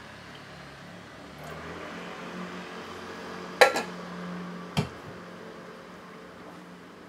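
Two sharp clicks of a hard object against a hard surface about a second apart, the first the louder with a brief rattle, over a steady low hum.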